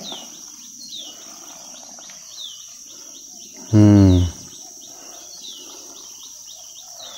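Steady high drone of insects, with a bird repeating short falling chirps every second or so. About four seconds in comes one loud, brief, low voice-like sound.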